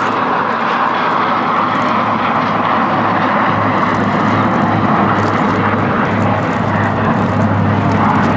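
Jet aircraft engines running: a steady, loud rush of noise with a low, even hum underneath.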